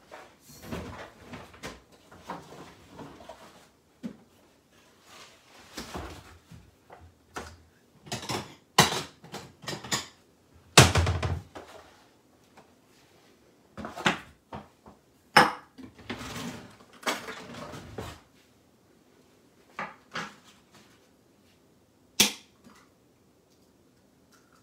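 Scattered knocks, clatters and scuffling of kitchen things being handled, as a bowl and a carton of eggs are fetched and set down on a countertop, with one heavier knock near the middle and a sharp tap near the end.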